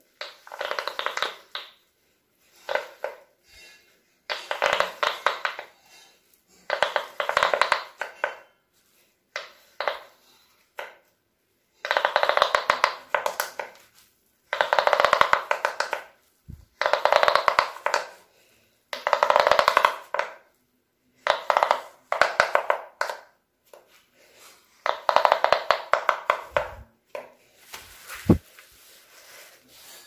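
Silicone bubbles of a large pop-it fidget toy popping under the fingers, in quick runs of many crisp pops lasting a second or two each, with short pauses between runs.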